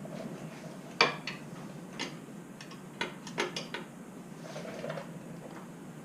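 A 1/2-inch wrench working a bolt loose on a motorcycle's exhaust mounting, with sharp metal clicks and clinks, about one a second and then a quick cluster of several.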